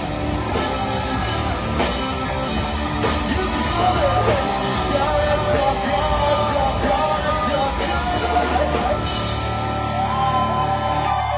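Live rock band playing, with a singer shouting and singing over guitar, bass and drums.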